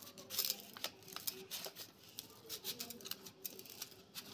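A hand mashing and squeezing boiled potato chunks with chopped onion and spices in a bowl: soft, irregular squishing with quick crackly clicks.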